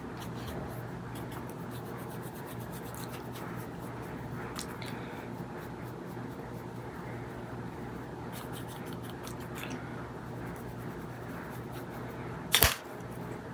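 Faint scratching and brushing of a makeup brush working makeup into a wig's lace, over a steady low hum, with one sharp knock near the end.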